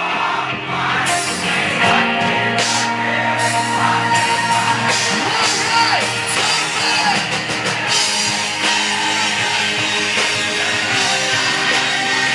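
Live rock band performing, with a male singer over electric guitar, bass and drums.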